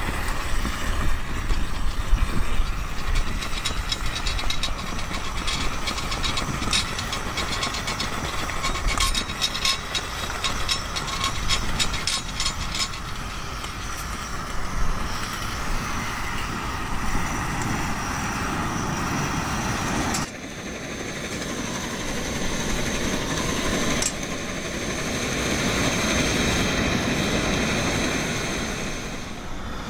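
Coleman gasoline camp stove being lit. The flaring yellow priming flame rushes and sputters, with a run of sharp pops in the middle. After a couple of abrupt breaks, the burner settles to a steady even rushing under a pot.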